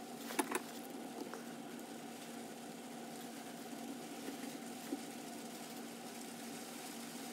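Steady low hum of room equipment, with a few faint clicks from a screwdriver and metal carburettor parts being handled, about half a second in and again around five seconds in.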